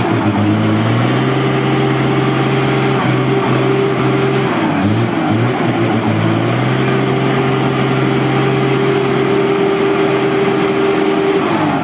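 Diesel engine of a Mack four-wheel-drive truck working uphill at steady revs. Its pitch dips and recovers a couple of times around the middle and falls away near the end.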